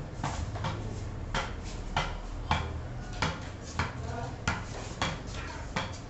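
A ball tapped repeatedly up off the face of a wooden cricket bat: sharp knocks about twice a second, some louder than others.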